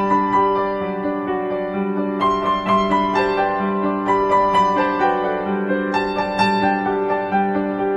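Background piano music: a slow melody of changing notes over held low notes, with fresh chords struck about two and six seconds in.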